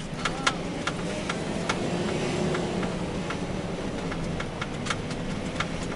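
Fire truck driving steadily, heard from inside the cab: a constant engine hum and tyre noise on brick paving. Sharp clicks and rattles come through it, several every second.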